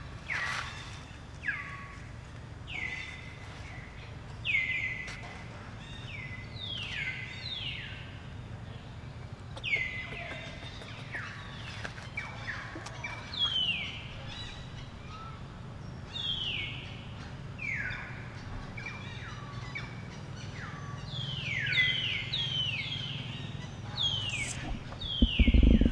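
Birds calling: many short whistles, each sliding downward in pitch, repeated over and over and sometimes overlapping, over a steady low hum. A loud low noise cuts in near the end.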